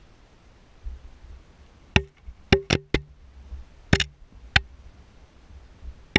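Irregular sharp knocks, each with a short hollow ring, inside a narrow hand-dug well shaft: about seven strikes starting about two seconds in, some in quick runs of two or three.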